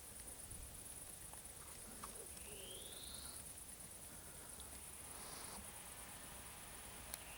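Crickets chirring steadily at a high pitch, with one short rising whistle about two and a half seconds in and a single sharp click near the end.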